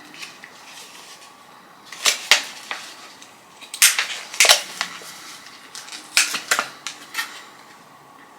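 Plastic packaging crackling and snapping as a small product is unwrapped by hand, in a few separate bursts of sharp crinkles.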